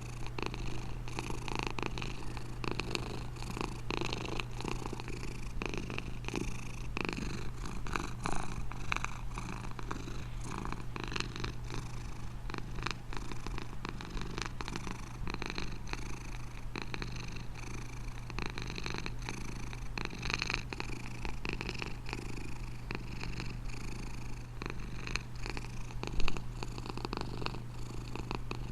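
Domestic cat purring steadily and continuously, with one brief louder sound a couple of seconds before the end.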